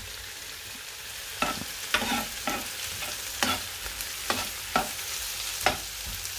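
Chopped onions, peppers and tomatoes sizzling in oil in a non-stick frying pan, with a steady hiss. A spatula knocks and scrapes against the pan about ten times at irregular intervals.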